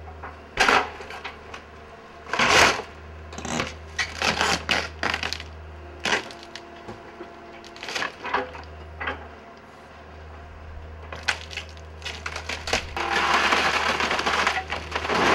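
Excavator tearing into a building: wood cracking and splintering and debris crashing in a series of sharp hits over the machine's steady low engine drone, with a longer crash of falling debris near the end.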